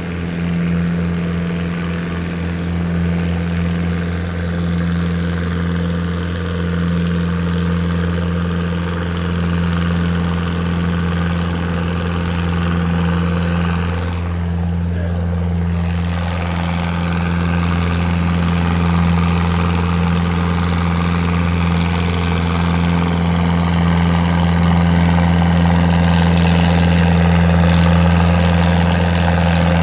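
International tractor's engine running steadily under heavy load as it pulls a weight-transfer sled down the track, a constant low drone that gets a little louder in the last few seconds.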